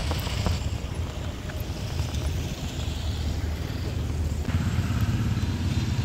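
A steady low engine rumble, growing louder about four and a half seconds in.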